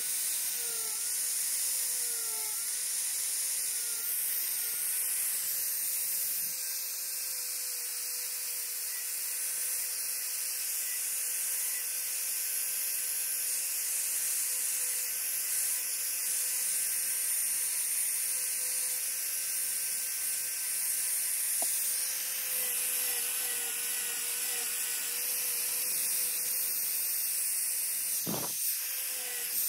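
Angle grinder carving wood: a steady high motor whine over a hissing grind. The pitch sags briefly several times as the disc bites into the wood, and there is a short thump near the end.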